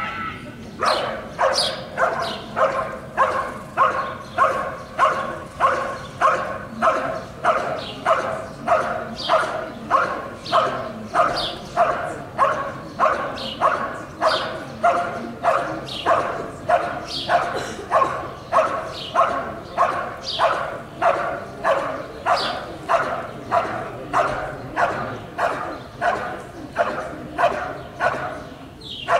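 Belgian Malinois barking in an even, unbroken rhythm, roughly one and a half barks a second, at a helper standing still in front of it. This is the hold-and-bark guarding of IGP protection work, done after the dog has released the sleeve.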